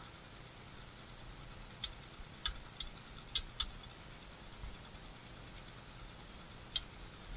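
About six short, sharp clicks over a faint steady hiss, most of them in a cluster in the first half and one more near the end.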